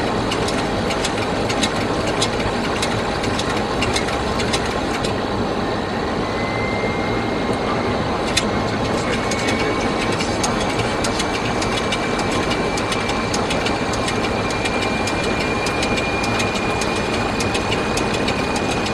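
Steady jet airliner cockpit noise on approach: a constant rush of airflow and engine noise. A thin whine appears about six seconds in and slowly climbs in pitch, with scattered faint clicks throughout.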